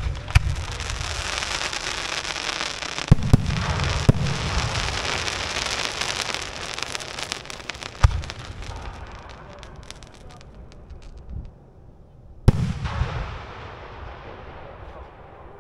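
Fireworks going off: a bang opens a dense crackling hiss that runs about ten seconds, with heavier bangs about three, four and eight seconds in. A further bang comes about twelve and a half seconds in, and its crackle fades out.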